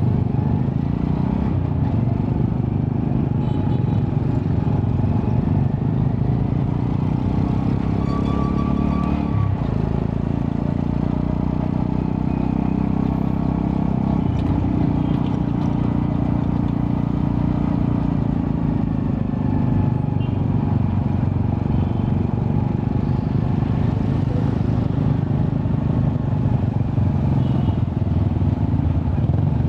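Honda Astrea Prima 110cc four-stroke single-cylinder motorcycle engine running through a custom underbelly exhaust with resonator, a steady low engine note that changes abruptly about nine and a half seconds in.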